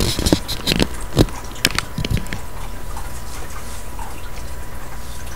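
Handling noise of a handheld camera being moved and set down: a quick run of knocks and rustles in the first two seconds or so, then a steady low hum.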